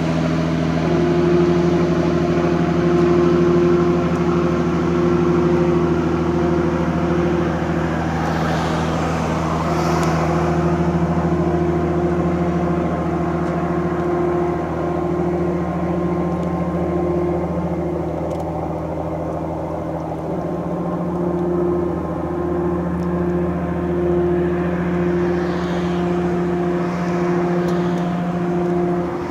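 Steady low engine drone with a constant hum that wavers and drops out in places.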